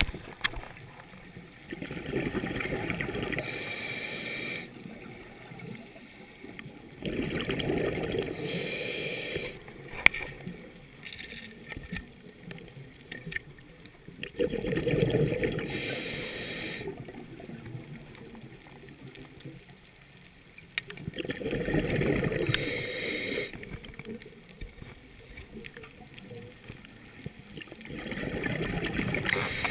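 Scuba diver breathing through a regulator underwater, about five breaths spaced six to seven seconds apart. Each breath is a hiss through the regulator and a rush of gurgling exhaled bubbles.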